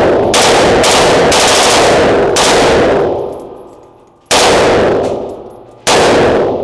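A rifle firing full-automatic bursts on an indoor range, the shots running together and echoing hard off the walls for about three seconds. Two more loud reports follow, about four and six seconds in, each ringing away in the room's reverb.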